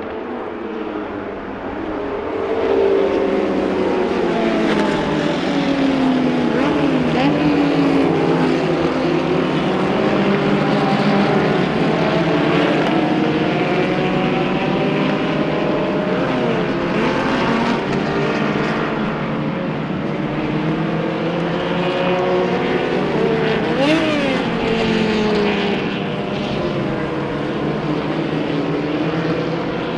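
Several 1960s cigar-shaped formula racing cars with their engines running hard at once. Their overlapping engine notes rise and fall as they accelerate and shift, swelling louder about two seconds in.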